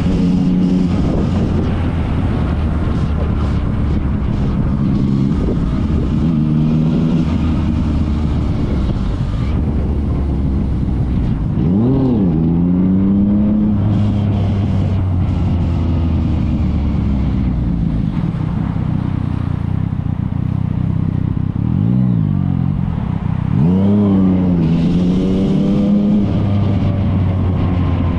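Yamaha MT-09's three-cylinder engine running loudly through an aftermarket Akrapovic exhaust, its pitch dropping sharply and climbing again about halfway through and twice more near the end, as with gear changes or throttle blips.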